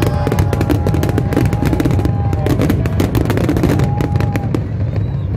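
Fireworks display: dense, rapid crackling and popping of many aerial shells bursting at once, over a continuous low rumble.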